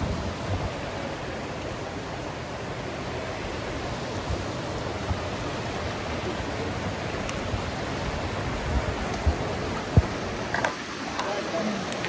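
Johnston Creek's rapids rushing over rocks in a steady, even wash of water noise. A few short thumps come near the end, the loudest about ten seconds in.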